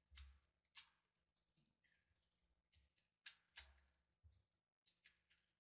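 Near silence broken by about half a dozen faint, scattered clicks of a computer keyboard and mouse.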